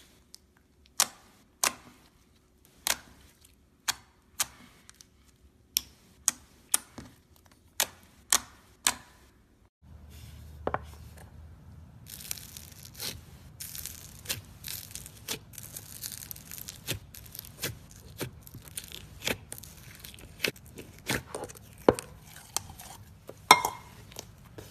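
Slime being pressed and stretched by hand, giving sharp separate pops about once or twice a second. About ten seconds in it changes to denser, quicker crackling over a low hum.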